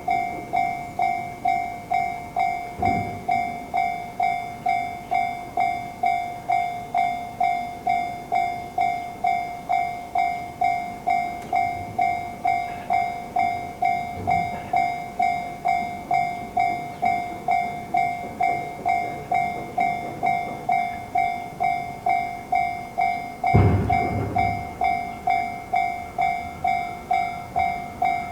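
Japanese railroad crossing warning bell ringing its repeated "kan-kan" tone, about two strikes a second, steady throughout. A few faint knocks come along the way. About two-thirds of the way through, a louder thud starts a low rumble from a passing train that continues under the bell.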